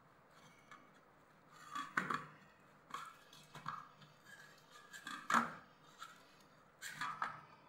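Hand kneading rice-flour dough in a stainless steel plate: irregular pressing and scraping of the dough and hand against the metal, with a handful of louder strokes.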